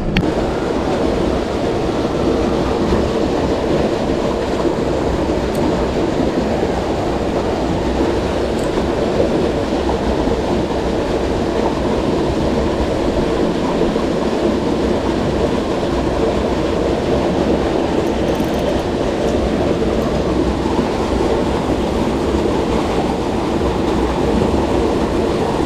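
Steady rush of flowing creek water, an even noise that does not change.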